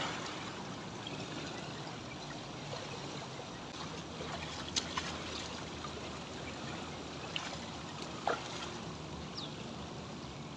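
Swimming-pool water lapping and trickling at the pool edge right by the microphone, a steady wash with a few brief small splashes or drips about halfway through and again later.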